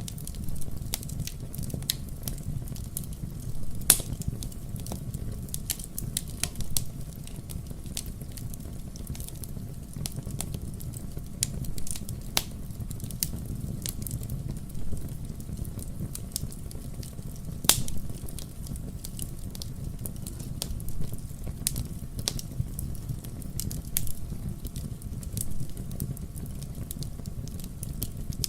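Wood fire burning in a fireplace: a steady low rumble of flames with irregular crackles and sharp pops from the burning logs, the loudest pops about 4 seconds and about 18 seconds in.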